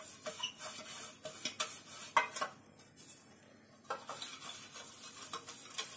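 Pastry brush scraping and dabbing oil around the inside of a metal loaf tin: a string of light brushing scrapes and small taps against the metal, with a pause of about a second midway.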